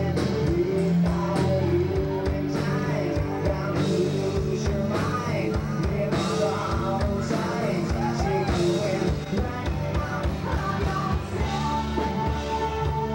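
Rock band playing live: a male singer over guitars and a drum kit, with wavering held vocal notes through the middle.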